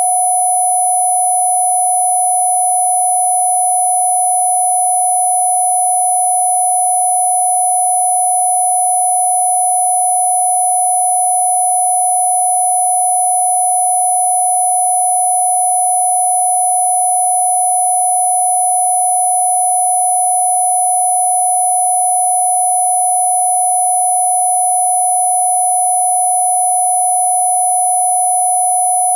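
A single steady, unchanging, mid-pitched pure tone, electronically generated as a Rife 'healing frequency', with fainter steady high tones above it.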